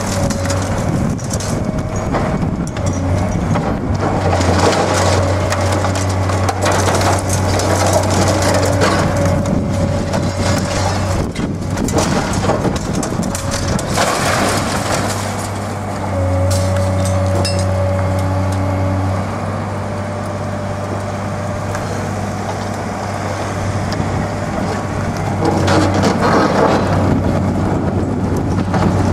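CAT 385C high-reach demolition excavator's diesel engine running steadily while its hydraulic shears crush reinforced concrete, with repeated crunching and cracking of breaking concrete and falling debris.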